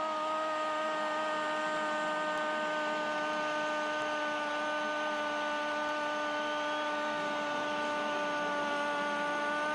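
A Spanish-language TV football commentator's long, drawn-out "Gooool!" cry, one steady held note, over a stadium crowd cheering a goal.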